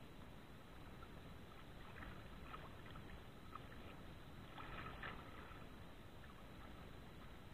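Faint lapping of choppy water with a low wind rumble, and a few soft splashes around the middle.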